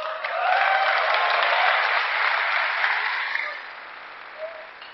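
Audience applauding, swelling quickly at the start and dying away after about three and a half seconds.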